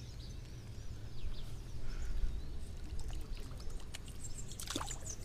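Water trickling and splashing around a small snook as it is landed from the river, with a few sharper splashes near the end. Faint bird chirps in the background.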